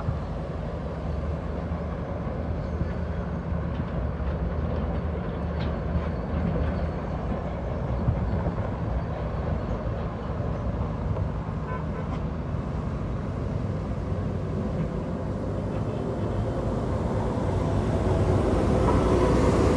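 Heavy diesel truck engine running steadily, growing louder near the end.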